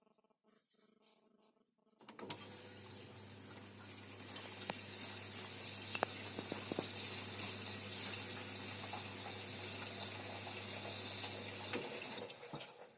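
Water running steadily with a low hum under it, starting suddenly about two seconds in and stopping about a second before the end.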